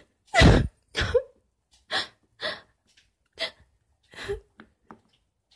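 A girl's short sobbing gasps, about seven in a row, voicing an upset toy character crying; the first, about half a second in, is the loudest.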